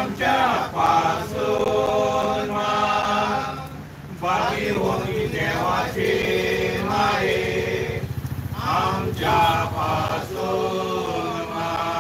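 A small congregation chanting a prayer in unison, phrase by phrase with short pauses.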